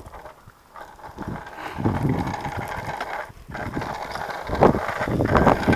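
Bicycles rolling along a path: tyre and frame rattle, clattering more near the end, with wind rumbling on the microphone.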